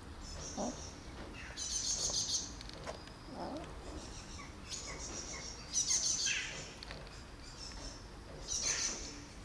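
Small birds chirping in short, quick trills: a handful of separate bursts, high-pitched, over a faint steady outdoor background.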